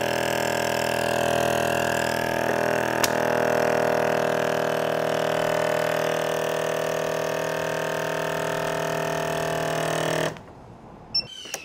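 Meat Your Maker vacuum sealer's pump running steadily on the moist-food setting, drawing the air out of a bag of marinated meat. There is a sharp click about three seconds in, and the pump stops abruptly shortly before the end.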